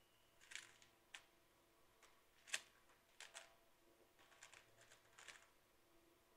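Faint, irregular plastic clicks and clacks of a speed cube's layers being turned by hand, some coming in quick clusters of two or three.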